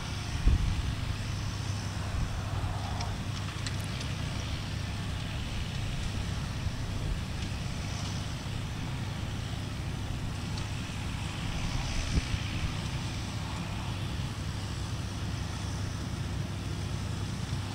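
Grimme potato harvester working: a steady low engine drone with wind noise on the microphone and an occasional knock, the loudest about half a second in.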